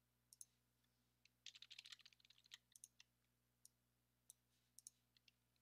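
Faint, scattered clicks of a computer mouse and keyboard, with a quick run of clicks about one and a half seconds in.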